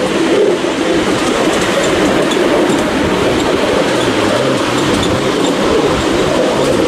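A miniature railway train running along its track, heard from on board: a steady rumble of wheels on the rails.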